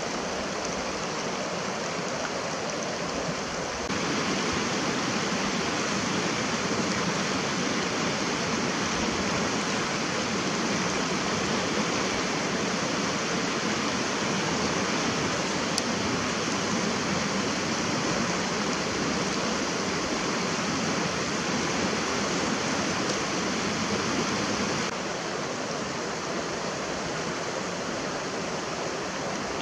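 Rushing water of a fast mountain stream, a steady unbroken rush that steps up in level about four seconds in and drops back a few seconds before the end.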